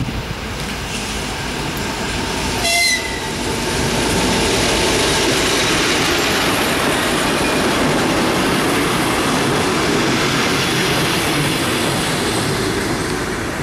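A DM62 diesel locomotive hauling a suburban passenger train goes past close by. There is a short horn blast about three seconds in, then the steady rumble and clatter of the coaches' wheels on the rails.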